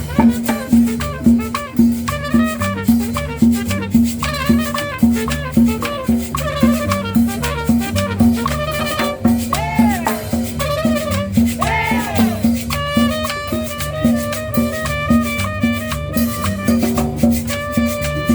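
Cumbia dance music with a steady beat, a repeating bass line and a shaker. Around the middle a melody line bends up and down in pitch, then sustained held notes carry on to the end.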